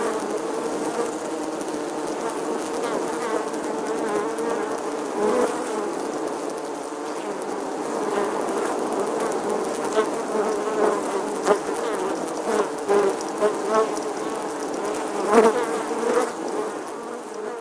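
Many honeybees buzzing together in a steady drone, with individual bees flying close past the microphone and swelling louder now and then, most strongly near the end.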